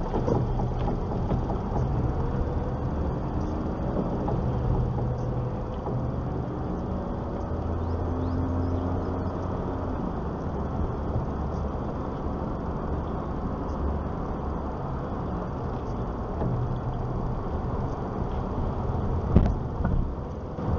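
Car driving along a road, its steady engine and tyre rumble heard from inside the cabin, with one sharp knock near the end.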